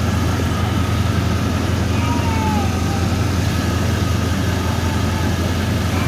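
A 2001 GMC Sierra 1500HD's V8 engine idling steadily, with a thin steady whine above the low running note. The AC compressor clutch is not engaged, which the owner traces to a faulty low-pressure switch.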